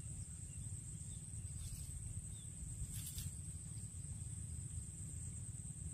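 Insects chirring in one steady, high-pitched tone over a low, steady background rumble, with a brief rustle about three seconds in.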